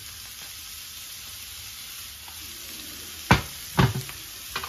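Chopped shallots sizzling steadily in hot butter and oil in a frying pan as they begin to sweat. Two sharp knocks a little past three seconds in, half a second apart, and a fainter click near the end.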